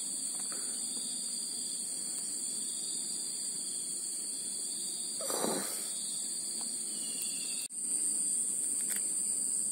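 Insects droning steadily, a high whine at two pitches, with a short breathy huff about five and a half seconds in.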